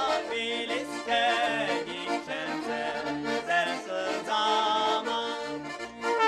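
Accordion playing a lively folk tune, a melody over short, regularly repeating bass notes.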